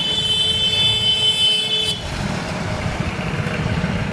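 A vehicle horn sounds one steady note for about two seconds and cuts off sharply, over a continuous low rumble of road traffic.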